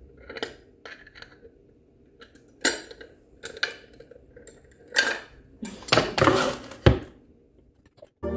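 Stainless steel rings and rod of a bottle stand clinking and knocking against each other and against a wooden base as the stand is fitted together by hand. Scattered light clicks, with a few louder knocks in the second half.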